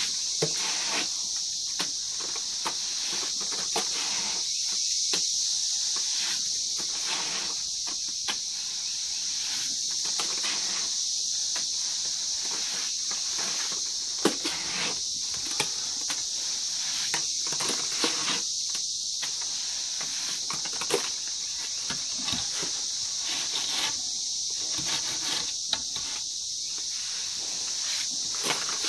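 Hands smearing and pressing wet mud plaster onto a wall, a string of irregular scratchy rubs with a few sharp slaps and clicks. Under it runs a steady high-pitched insect chorus.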